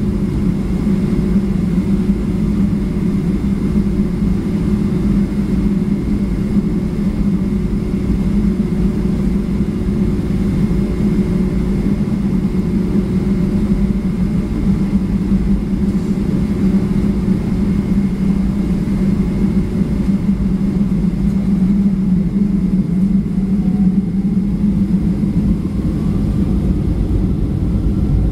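Cabin noise of a Boeing 757-200 taxiing, heard from a window seat aft of the wing: a steady low drone from the jet engines at taxi power, unchanging throughout.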